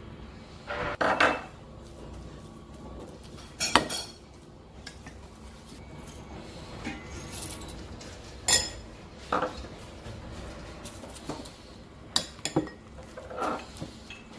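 Kitchen utensils clinking and knocking against dishes, a string of separate, irregularly spaced knocks.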